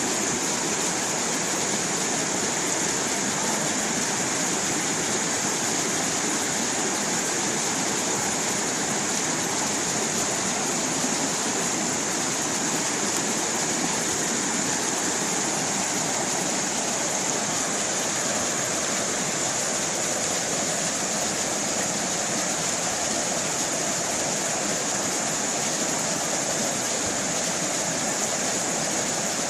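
Water of a small stream running and splashing over rocks, a steady, unbroken rush with a bright, hissy top.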